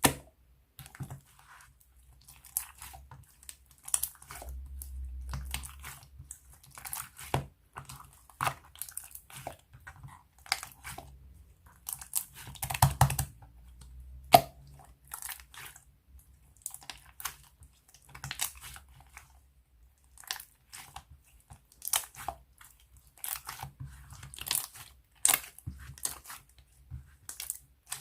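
Clear glitter slime being pressed, poked and stretched by hand, making irregular sticky clicks and pops, with some low handling rumble in places.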